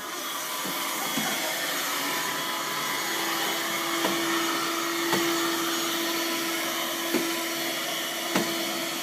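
Vacuum cleaner running steadily, its motor hum holding one pitch, with a few short knocks as it is moved about.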